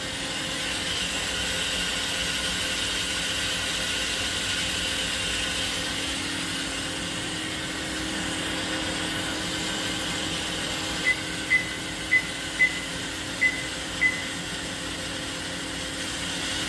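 Live milling tool in the turret of a DMG MORI NLX2000SY turning center spinning steadily at speed, around 1,500 rpm, with a steady whirring hum. Near the end, six short high beeps.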